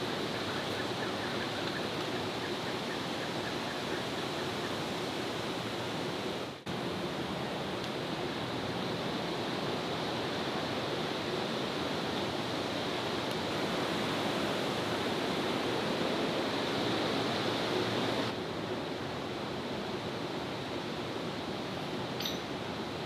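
Steady rushing outdoor background noise, with a brief faint high chirp near the end.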